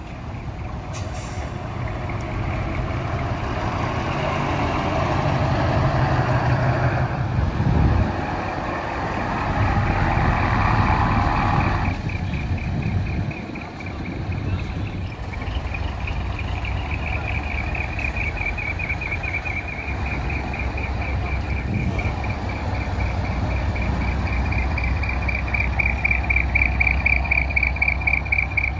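A heavy diesel truck engine running as it manoeuvres slowly, with a long air hiss that cuts off suddenly about twelve seconds in. From about halfway, a high, rapidly pulsing reversing alarm sounds and grows louder near the end.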